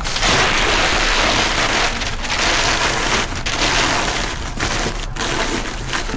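Packing paper being crumpled and stuffed into a cardboard box as void fill around an item: a continuous dense crackling rustle.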